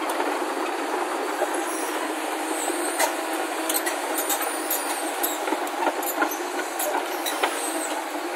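JCB crawler excavator running steadily, with irregular sharp metallic clanks and short high squeaks.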